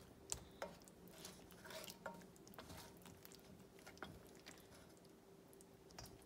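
Faint clicks and scrapes of a wooden spoon against metal pans as pieces of chicken in thick creamy sauce are lifted from a frying pan into a karahi: a handful of separate taps over a faint steady hum.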